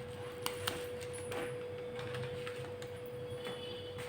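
Quiet room tone: a faint steady hum with a few soft clicks.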